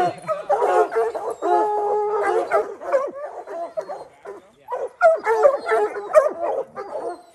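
A pack of hounds baying treed at a mountain lion, several voices overlapping, with a brief lull a little past the middle.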